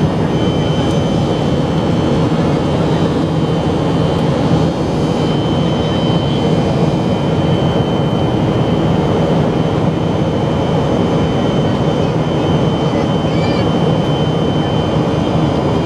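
Jet airliner cabin noise during the climb after takeoff, heard from a window seat beside the engine: the jet engines and rushing air make a steady, dense rumble, with a thin, high, steady whine over it.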